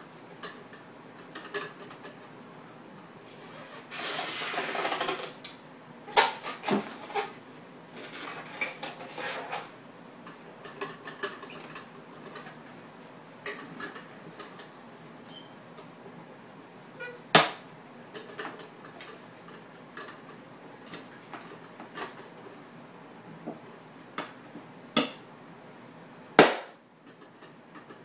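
Scattered clicks and knocks of a magician's barred prop box being handled, with a short burst of noise about four seconds in and two sharp knocks near the middle and near the end.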